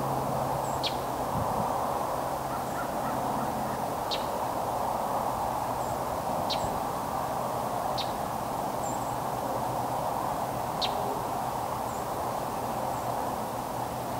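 Steady noise of a distant CSX freight train approaching, with a bird giving short, thin, high calls every couple of seconds.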